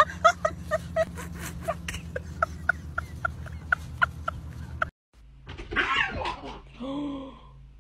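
A small dog gives a quick run of short, high yips, about four a second, that stops abruptly about five seconds in. Then two cat calls follow: first a rough, noisy cry, then a shorter meow near the end.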